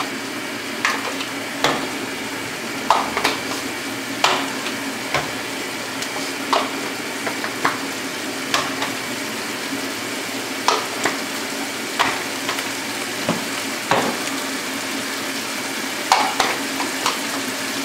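Biryani masala of tomatoes, onions and spices frying in a large aluminium pot. It gives a steady sizzle with irregular sharp pops and ticks every second or so, the sound of the masala being browned (bhunai) before water is added.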